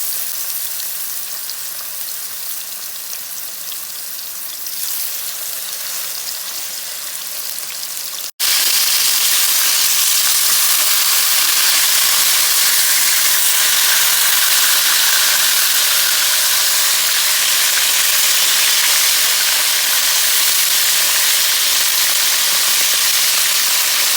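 Seasoned boneless chicken thighs frying in about half a cup of hot oil in a skillet: a steady sizzle. About eight seconds in it drops out for an instant and comes back louder.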